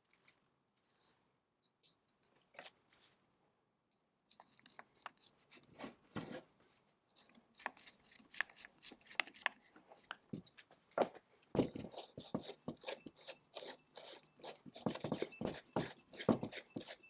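Metal parts of an antique blower being handled by hand during reassembly: small clicks, taps and scrapes as the cast-iron pulley is fitted on the shaft and a pin is worked in at its hub. A few faint clicks at first, then dense handling noise from about four seconds in, with louder knocks now and then.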